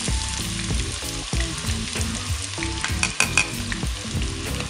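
Chopped onions sizzling as they fry in hot canola oil with dried red chilies and bay leaf, stirred in the pot. A quick run of sharp clicks from the utensil against the pot comes about three seconds in.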